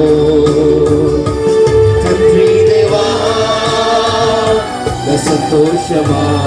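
Christian praise-and-worship song with band accompaniment: a long note held for about four and a half seconds, then shorter melodic phrases over the backing.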